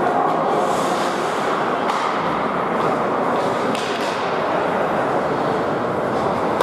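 Ice hockey play in a rink: skates scraping on the ice and sticks clacking over a steady hall noise, with two sharp knocks about two and four seconds in.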